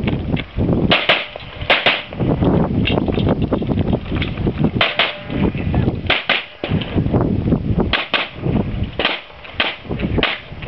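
Handgun shots fired in an IPSC/USPSA stage, in irregular strings with several quick pairs of shots.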